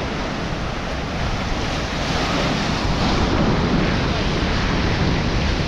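Sea surf washing and breaking on the rocks below a seawall, mixed with wind buffeting the microphone; the rush swells a little about two seconds in.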